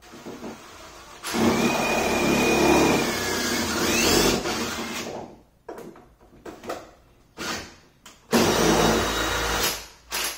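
Cordless drill boring a pilot hole into a butcher block countertop: a run of a few seconds with its whine rising near the end, a few short trigger blips, then a second shorter run.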